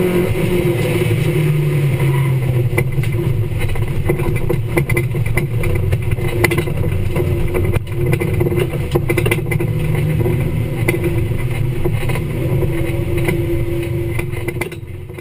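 Rallycross car's engine heard from inside the caged cabin, running steadily with its pitch rising and falling as the driver works the throttle, over short rattles and clicks from the car. The sound fades out near the end.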